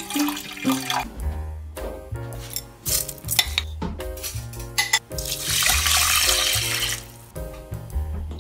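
Light instrumental background music with a bass line. Over it come a few sharp clicks and about two seconds of rushing, hissing noise midway, from kitchen work at a rice cooker.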